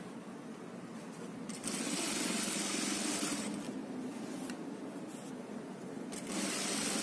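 Juki industrial lockstitch sewing machine stitching fabric in two runs: one starts about one and a half seconds in and lasts about two seconds, and another starts near the end, with a quieter stretch between.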